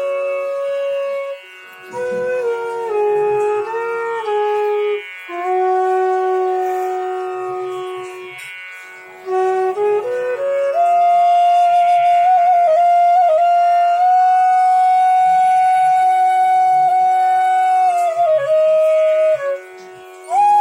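Bansuri bamboo flute made by Bakale, played as a sound and note test: a slow melody of long held notes with small bends and ornaments, over a lower steady drone note for much of the time. The playing pauses briefly for breath a few times, near the start, about halfway and near the end.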